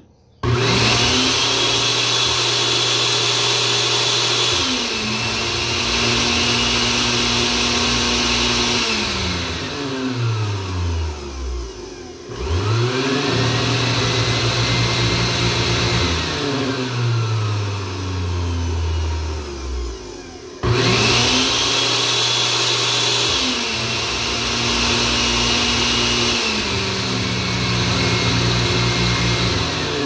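Blender motor running fast with a high whine, then stepping down to slower, lower-pitched speeds as a selector switches it to lower-voltage transformer taps. It winds down almost to a stop about 12 seconds in, starts up again, and about 21 seconds in jumps suddenly back to full speed before stepping down again.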